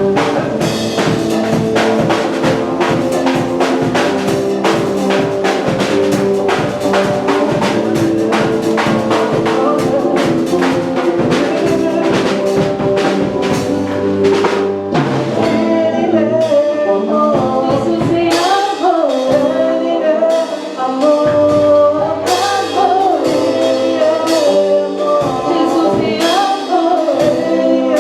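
Band music with a drum kit keeping a steady beat under sustained brass or keyboard chords; a voice comes in singing about two-thirds of the way through.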